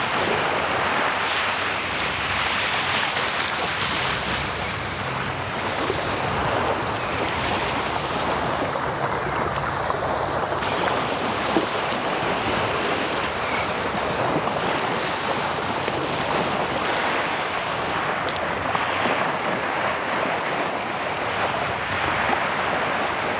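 Small surf washing onto a sandy beach, a steady rush of breaking waves, with wind buffeting the microphone.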